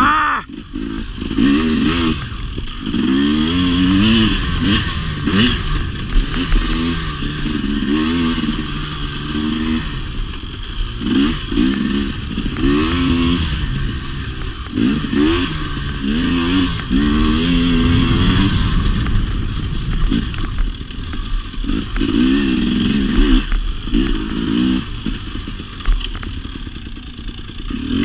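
2017 KTM 250 XC-W two-stroke single-cylinder dirt bike engine being ridden hard, revving up and dropping off in quick repeated surges. Clattering knocks are mixed in along the way.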